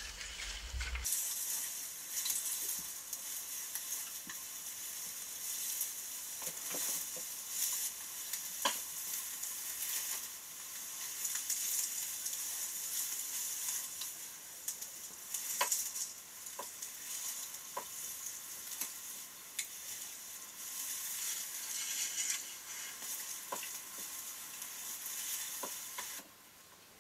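Tall dry grass rustling and crackling continuously as bowhunters crawl through it, with a few sharp snaps of stems. It starts abruptly about a second in and stops abruptly just before the end.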